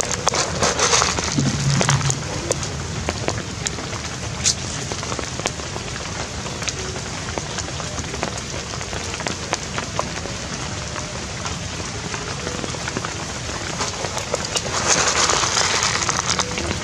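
Rain falling steadily, with many separate drops ticking and dripping. It swells louder twice, about a second in and again near the end.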